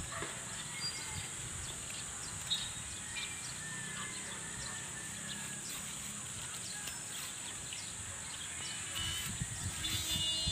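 Open-air rural ambience: a steady hiss with wind buffeting the microphone and faint, scattered bird chirps.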